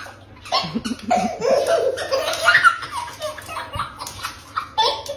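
A young child laughing hard in repeated bursts.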